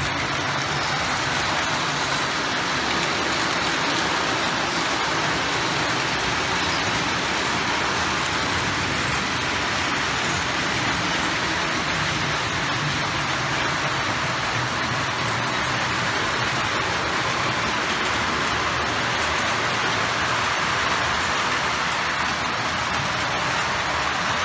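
O gauge model trains running on the layout's track: a steady rolling noise of metal wheels on rail and the locomotives' motors, without a break.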